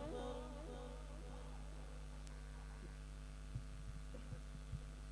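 Low, steady electrical mains hum on the mosque's microphone and sound-system chain during a pause in the prayer, with a few faint soft knocks in the second half.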